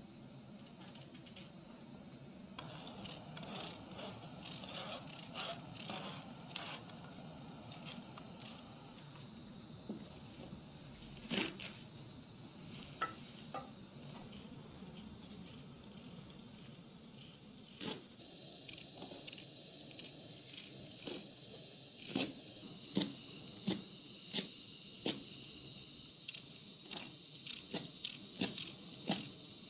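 Kitchen knife cutting fresh herbs on a plastic cutting board and slicing raw onion, heard as short crisp cuts and knocks of the blade, in a fairly regular run of strokes near the end, over a steady faint hiss.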